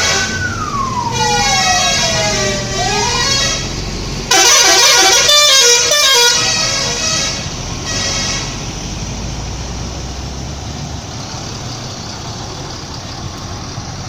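Bus 'telolet' musical air horn playing: a siren-like tone gliding down over the first three seconds over held horn chords, then a loud run of quick stepping multi-note chords about four seconds in and a shorter burst near eight seconds. After that only a steady engine and road noise remains.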